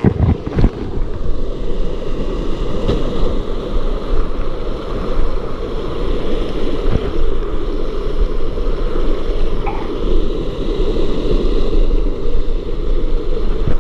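Steady, loud rush of stream water pouring over rocks at a waterfall.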